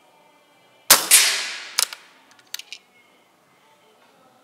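Air rifle firing a single shot about a second in: a sharp crack that dies away over about a second, followed by a few lighter clicks.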